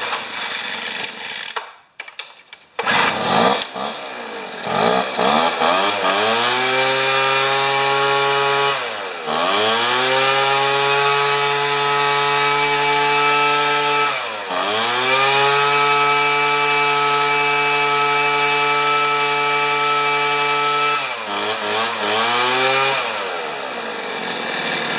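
Weed Eater two-stroke leaf blower being pull-started on half choke, catching after a couple of seconds and revving up to full speed with its fan rushing. The engine holds high revs, drops back sharply and climbs again twice, then throttles down to a lower speed near the end, running cleanly after its fuel-filter cleaning.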